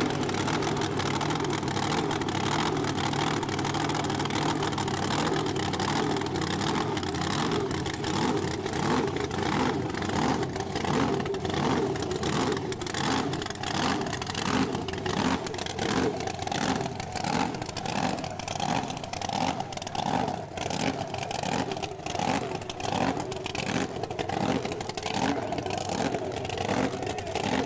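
Supercharged drag-racing engine of a '34 Chevy coupe running at idle, with a regular lumpy pulse.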